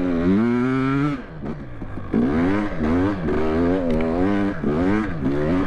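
KTM 300 XC TPI's 300 cc two-stroke engine revving up and falling back over and over, about once a second, as the throttle is worked. There is a brief softer stretch about a second in.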